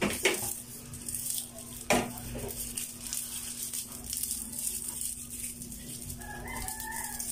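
Lemongrass stalks being bent, folded and knotted by hand: two sharp crackling snaps, one at the start and one about two seconds in, then lighter rustling and handling.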